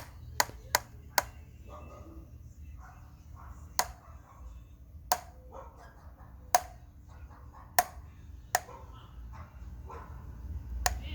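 OneWheel+ wheel clicking as the board rolls: sharp single clicks, several close together at first, then about one every second or so, over a low rumble. The owner takes the clicking for a bad bearing.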